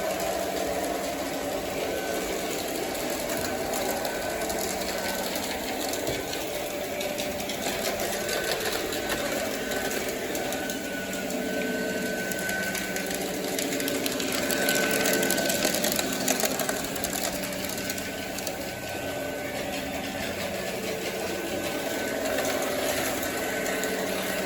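O gauge electric model train running steadily on its track: a motor hum with a thin whine that comes and goes.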